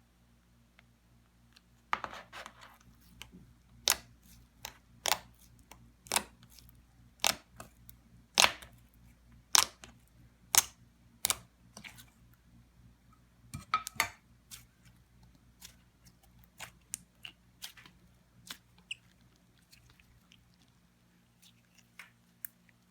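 Slime being squeezed and poked, giving a string of sharp clicks and pops about one a second, loudest through the middle and with a quick cluster a little past halfway.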